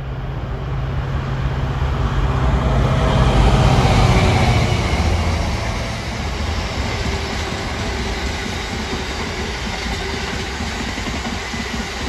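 Intermodal container freight train passing at speed behind a diesel locomotive. The locomotive's engine hum builds and is loudest about four seconds in as it goes by, then gives way to the steady rattle and clatter of the container wagons on the rails.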